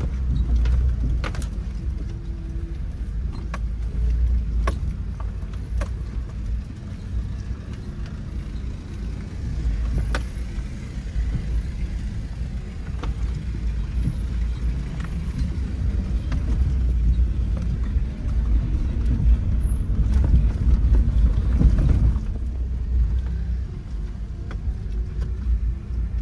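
Suzuki Jimny driving slowly over a rough, muddy dirt track, heard from inside the cabin. A steady low engine and drivetrain rumble rises and falls, with scattered knocks and rattles as the body bumps over ruts.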